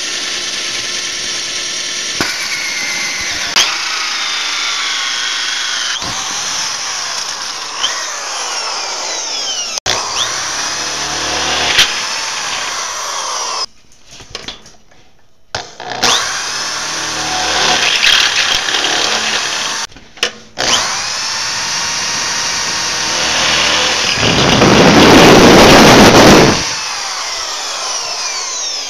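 Power drill spinning up and slowing down in a series of short clips, its motor whine rising and falling in pitch, turning a hole saw and then a step bit drilling through sheet metal. The sound stops abruptly several times, and the loudest part is a harsh cutting noise lasting about two seconds near the end.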